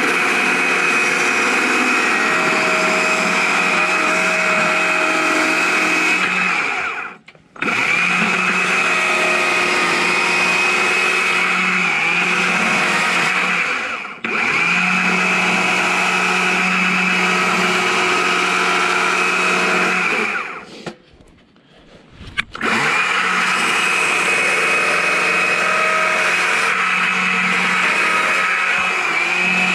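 Chainsaw running at high revs, carving into a log. The sound drops out briefly twice.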